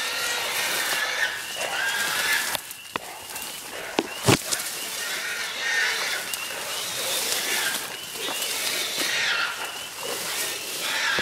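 A feral hog (a sow held at bay by hog dogs) squealing in repeated bursts over a steady rustle of marsh grass, with one sharp knock a little over four seconds in.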